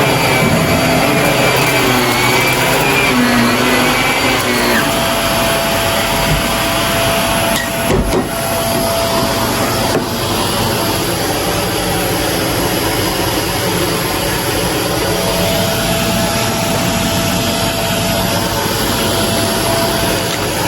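Shark vacuum cleaner running steadily with a continuous motor whine, with short sharp clicks about eight and ten seconds in.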